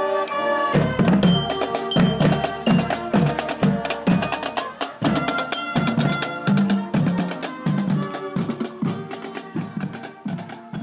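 Marching band drumline playing a street cadence: bass drums strike a steady beat of about two hits a second under sharp snare and tenor-drum clicks, coming in about a second in after a few ringing marching-bell notes. The drums grow fainter toward the end.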